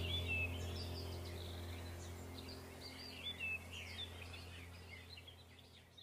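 Small birds chirping over a low steady drone, the whole soundtrack fading out gradually until it is nearly silent at the end.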